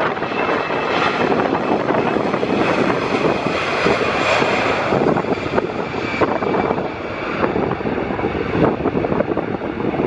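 Airbus A320 jet engines at high thrust on departure: a loud, steady rushing rumble with a faint whine, brightest about four seconds in. Wind buffets the microphone throughout.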